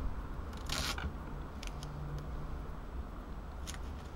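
Hands working duct tape onto a laminating-film pouch: a short rasping tear or crinkle just under a second in, then a few light ticks and rustles as the tape is pressed down, over a steady low background rumble.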